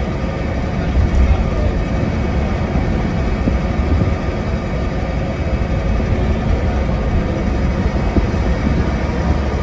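Preserved bus M73 WYG heard from inside the passenger saloon while under way: the diesel engine's steady low rumble with road and body noise.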